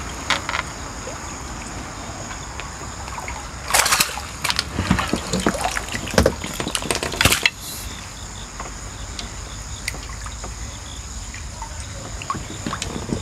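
A hooked crucian carp splashing at the surface as it is led into a landing net, with water sloshing. The biggest splashes come about four seconds in and again from about five to seven and a half seconds.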